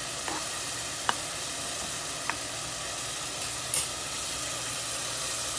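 Paneer cubes frying in ghee in a pan, giving a steady sizzle. A few sharp ticks stand out, the loudest a brief crackle about three-quarters of the way in.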